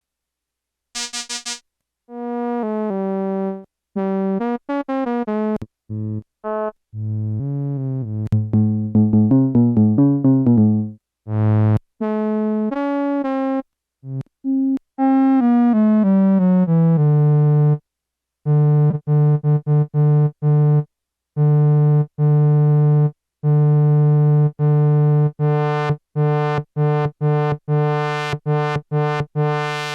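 Yamaha SY-2 vintage analogue synthesizer playing single notes and short runs with silent gaps between them, a bright short note about a second in, a note gliding down in pitch around the middle, then one low note struck again and again, its tone growing brighter near the end. The instrument is out of tune.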